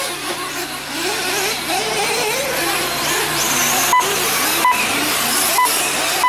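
Several radio-controlled truggies racing on a dirt track. Their motors whine and waver up and down in pitch as they accelerate and slow through the turns. Four or five short, sharp beeps sound in the second half.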